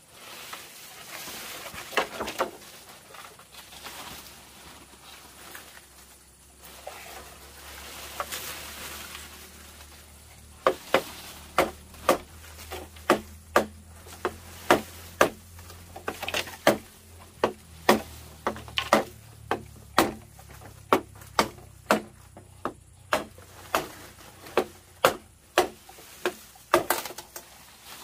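A hand tool striking bamboo over and over: scattered knocks and rustling at first, then from about ten seconds in a steady run of sharp strikes, roughly two a second.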